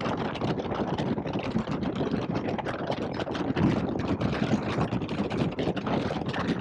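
2021 Indian Scout Bobber's V-twin engine running steadily while the bike cruises down the road.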